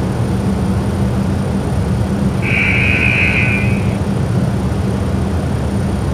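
Steady low rumble with hiss, and one high-pitched tone lasting about a second and a half, starting about two and a half seconds in.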